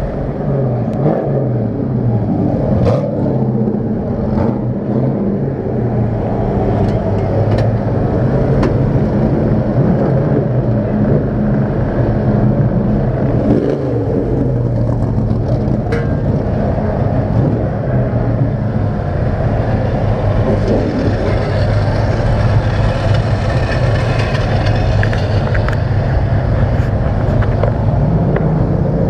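Engines running steadily, their pitch rising and falling now and then, with a few sharp clicks over them.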